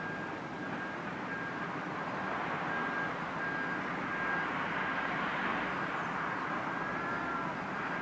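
Steady outdoor background rumble with no distinct events, a faint thin whistle coming and going over it, and a couple of faint short chirps about seven seconds in.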